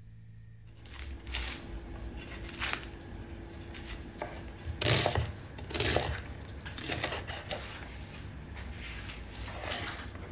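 Kitchen knife chopping an onion on a wooden cutting board: a series of irregular sharp knife strikes against the board.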